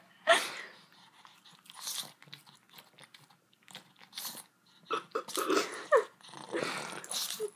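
Pug puppy licking and smacking his lips in short bursts of wet mouth clicks, a reaction to the sour taste of a Warheads candy, with a few short pitched squeaks between them.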